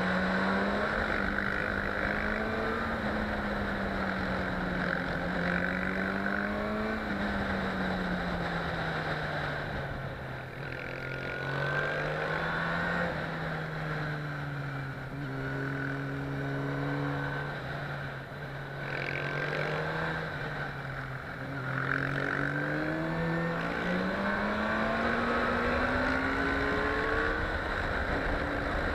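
Motorcycle engine heard from the rider's helmet at riding speed, over steady wind rush. Its note rises and falls with the throttle through the bends, sagging lower through the middle and climbing again near the end.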